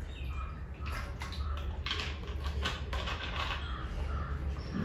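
Faint sounds of someone drinking from a plastic water bottle and handling it, a scatter of soft clicks and small noises over a steady low hum.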